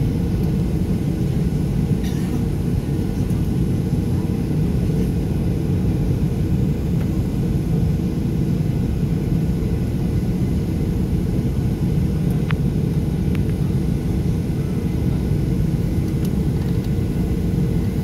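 Steady low rumble of a Ryanair Boeing 737's engines and airframe heard inside the passenger cabin as the jet taxis on the ground before the takeoff roll.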